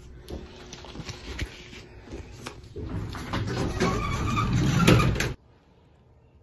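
City street traffic, with a vehicle passing close and growing louder, then cutting off suddenly. After that, only faint room tone.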